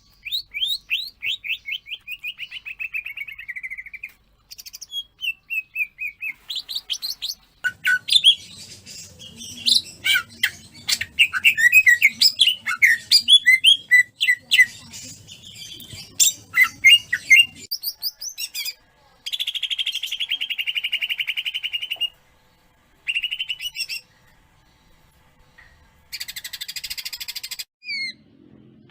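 A green leafbird (cucak ijo) singing a rapid run of clear, sweeping whistled notes that grades into dense, fast warbling chatter. Later come two long buzzy rattling trills, a few seconds apart.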